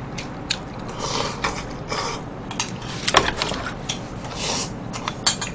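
Eating at a table: short clicks of a metal spoon, chopsticks and a wooden spoon against ceramic bowls, mixed with soft chewing and mouth sounds.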